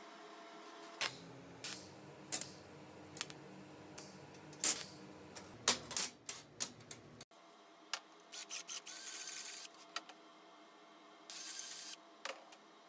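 Bent steel rods being handled and set down on a perforated steel welding table: a string of sharp metallic clinks and knocks, followed later by two short hissing scrapes of metal sliding on the table.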